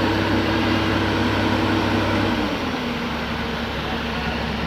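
Heavy diesel machinery engine running steadily; about two and a half seconds in its note drops to a lower pitch as it slows, then holds steady.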